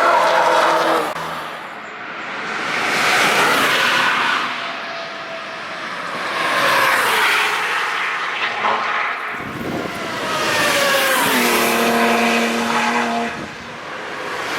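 Cars passing one after another at speed, about four in turn, each engine note swelling as it approaches and falling in pitch as it goes by.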